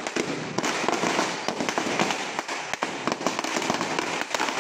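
Firecrackers going off on the ground in a rapid, continuous run of sharp pops and crackles.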